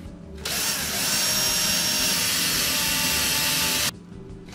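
Cordless drill pilot-drilling holes through a paper template into a door frame: it runs steadily for about three and a half seconds, stops, then starts drilling again near the end.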